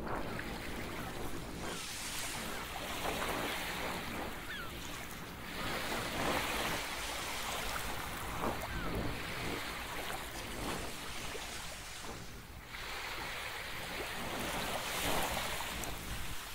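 Rushing outdoor noise of wind and water, like surf, swelling and easing every few seconds.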